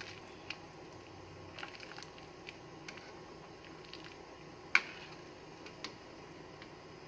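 A ladle stirring a coconut-milk stew of bamboo shoots in a pan, with scattered light clicks of the ladle against the pan, the sharpest about five seconds in.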